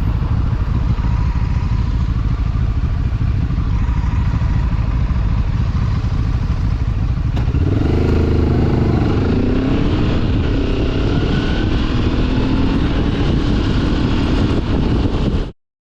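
Enduro motorcycle running on the move, with heavy wind rush on the microphone. About halfway through, the engine note comes through clearly, rising and falling as the rider works the throttle. It cuts off suddenly near the end.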